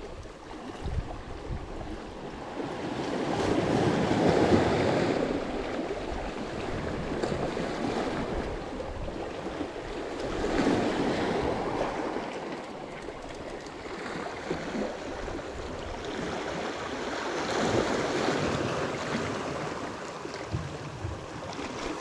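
Surf washing in, a swell of rushing water rising and falling about every seven seconds.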